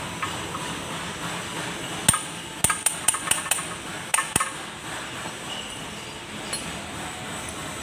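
Sharp metal-on-metal knocks, about ten in a quick cluster between two and four and a half seconds in, as a steel sleeve is struck against a pipe drift by hand to seat a ball bearing on the gearbox shaft.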